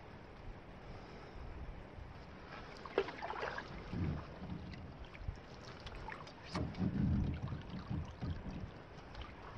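Canoe paddle strokes: the blade swishing and dripping through the water, with a splash about three seconds in and a louder one near seven seconds, over light wind noise on the microphone.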